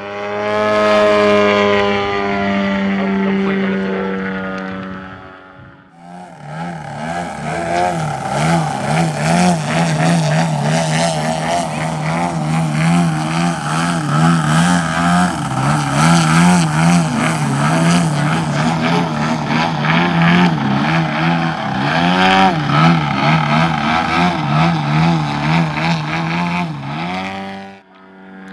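Engine and propeller of a radio-controlled aerobatic model plane. The pitch falls slowly as it flies past, then a sudden break follows. The engine then runs steadily with its pitch wavering up and down as the throttle is worked in a nose-up hover, with one quick rev up and back about three quarters of the way through.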